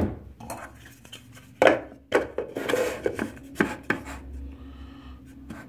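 Hard plastic knocks and clatter as the chopper's plastic bowl and lid are handled and the lid is fitted on, with a brief rustle of dried apple slices in the bowl about halfway through.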